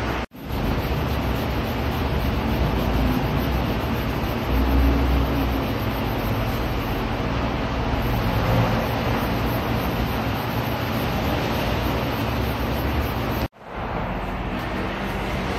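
Steady rushing background noise of a workshop, even and unbroken except for two brief dropouts, one just after the start and one near the end.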